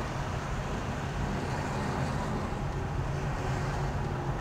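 Steady engine and road noise inside a car's cabin as it creeps along slowly on a wet road in traffic.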